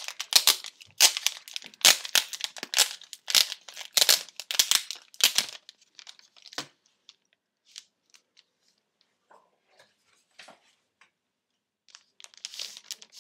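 Plastic wrapping around a new keyboard being torn open and peeled off, crinkling and crackling for about five seconds. A few faint ticks follow, then another short crinkle near the end.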